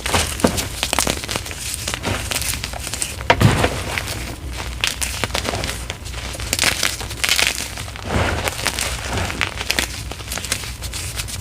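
Bits of gym chalk being crushed and crumbled by hand, a continuous crackling crunch of small pieces breaking into powder.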